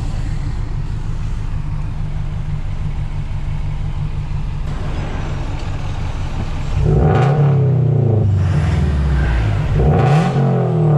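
Toyota GR86's 2.4-litre flat-four with a straight-piped exhaust idling steadily, then revved twice in the second half, each rev climbing and falling back to idle.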